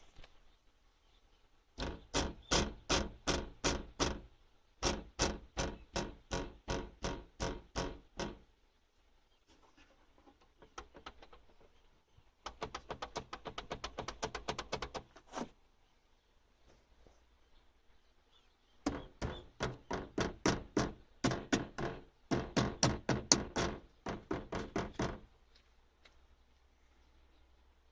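Rapid buzzing rattle of the interior trim panel near the Corolla Rumion's rear woofer, in five bursts of about four knocks a second with pauses between. It is the 'biribiri' noise that the owner traced to one loose screw behind the panel.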